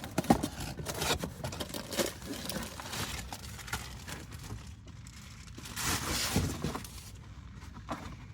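Scrapes, clicks and rustling of brake parts and packaging being handled, with a longer crinkling, tearing rustle about six seconds in.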